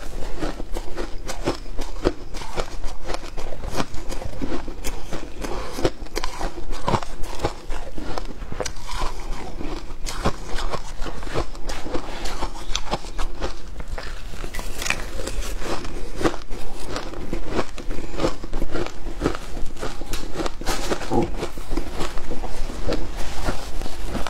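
Close-up crunching and chewing of shaved ice, a dense, uneven run of crisp crunches, with the spoon scooping through the ice in the bowl.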